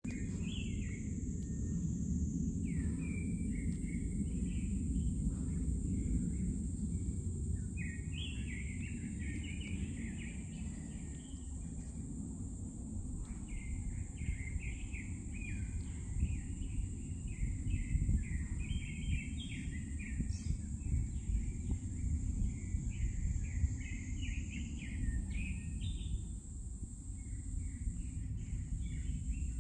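Forest songbirds singing repeated quick chirping, warbling phrases, over a continuous high-pitched buzz and a steady low background rumble.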